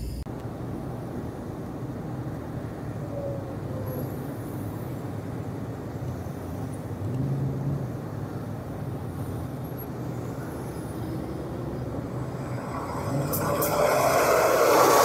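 Steady road and engine noise of a car on a freeway, heard from inside the cabin through a dashcam's microphone; it grows louder near the end.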